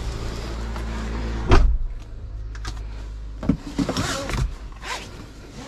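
A Daihatsu car's driver's door being shut with a single loud thump about a second and a half in, over a steady low rumble that stops a couple of seconds later. Light clicks and rustling follow as someone settles into the driver's seat.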